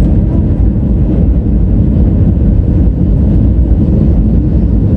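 Loud, steady low rumble of an Airbus A320 in flight, its engine and airflow noise heard from inside the passenger cabin.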